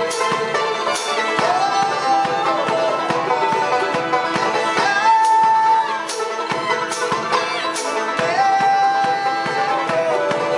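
Bluegrass string trio playing a lively tune on fiddle, banjo and mandolin: a dense run of plucked banjo and mandolin notes under the fiddle, which holds long notes, sliding up into them several times.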